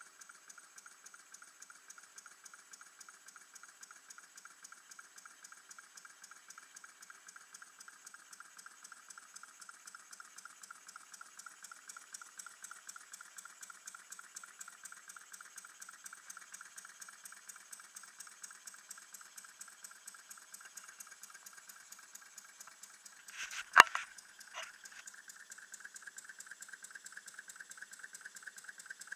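Small model engine running on low-pressure gas, a rapid, even ticking of its strokes that grows somewhat louder part-way through. One sharp knock about five seconds before the end.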